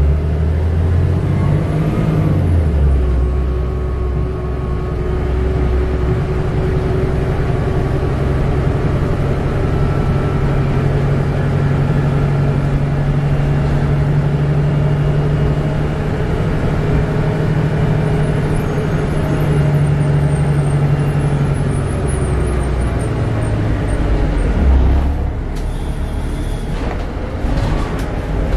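Denning Phoenix low-floor bus heard from inside the rear of the cabin while driving: a steady engine and drivetrain drone whose pitch shifts about two seconds in and again in the last few seconds. A brief hiss near the end.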